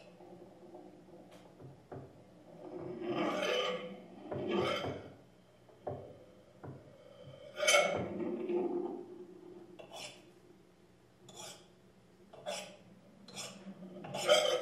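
Free-improvised sounds made with objects on tabletops: irregular rubbing and scraping noises that swell and fade every second or two, then short sharp clicks and scrapes in the second half, over a faint steady hum.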